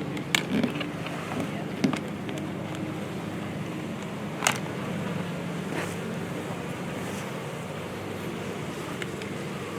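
Large honeybee swarm buzzing steadily, with a few sharp knocks and rustles from bees being scooped by hand into a box, the loudest about four and a half seconds in.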